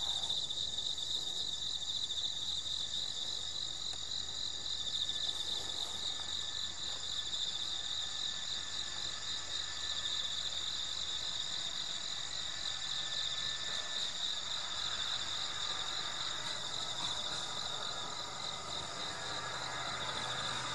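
Crickets chirping in a steady, pulsing chorus. From about two-thirds of the way in, the low running noise of the approaching Shiki-shima train, driven by its diesel generators in electric mode, rises beneath it.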